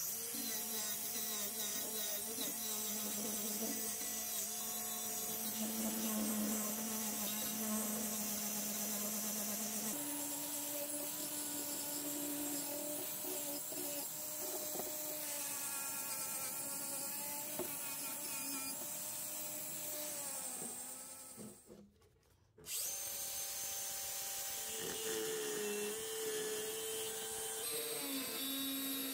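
An angle grinder runs against the wooden base of an old sewing machine, its motor note shifting as it is pressed into the work. About 22 seconds in it stops briefly. A second angle grinder then starts and works on the metal sewing-machine head.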